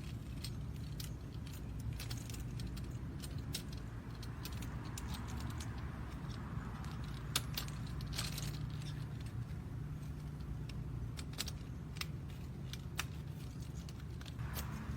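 Metal keys and steel bike-lock parts being handled, with many small clinks and clicks scattered through, over a steady low hum.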